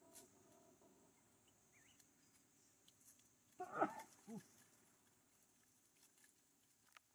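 A long-tailed macaque's short call about four seconds in, in two parts, the second lower and briefer, over a faint steady insect hum.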